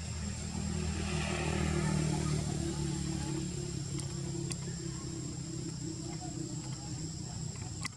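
A motor vehicle engine running steadily, swelling about one to two seconds in and then easing off, over a steady high whine, with a few faint clicks in the second half.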